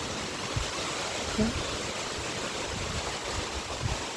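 Steady rain falling, an even hiss, with scattered low thuds and one short pitched sound about a second and a half in.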